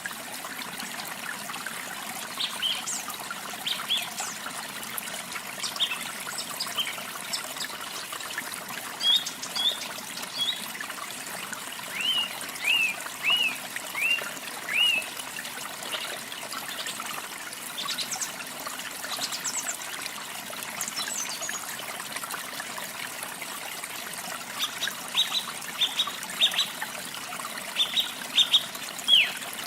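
Running water from a waterfall keeps up a steady trickling rush, with songbirds chirping over it. About twelve seconds in, a bird gives a run of five short arching notes, and near the end comes a quick burst of sharp chirps.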